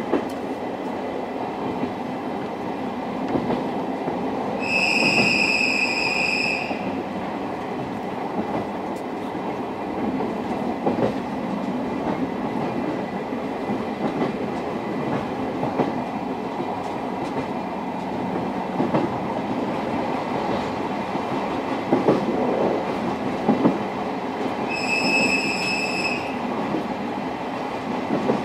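Interior running noise of an old-type SuHaFu 42 passenger coach under way: a steady rumble of wheels on rail with occasional knocks over rail joints. Two long high whistle tones sound, one about five seconds in and a shorter one near the end.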